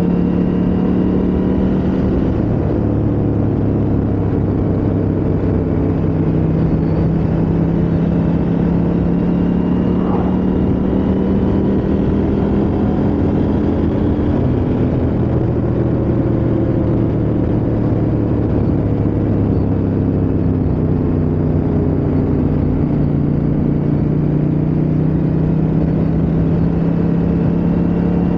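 KTM 890 Adventure R's parallel-twin engine running at a steady cruise under wind and road noise, its pitch easing down and back up a little several times.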